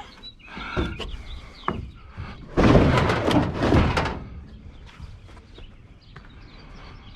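A loud rattling clatter of handled scrap lasting about a second and a half, a little before midway, with smaller knocks before it. Faint chickens are clucking in the background.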